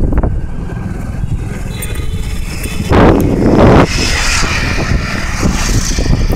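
Steady rumble of road travel with wind on the microphone, as from a vehicle moving along a road. About three seconds in, a louder rush of noise lasts about a second.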